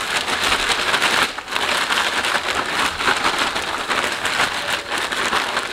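A gallon plastic zip-top bag being shaken hard, crinkling and rustling continuously as razor clams and breading mix tumble inside, with a brief break about a second in.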